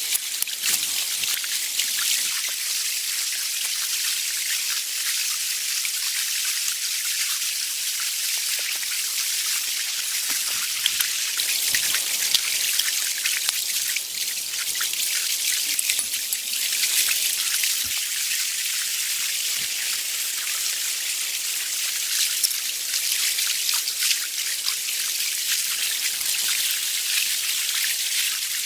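Steady rain, a constant hiss of falling water with many small drops ticking and pattering.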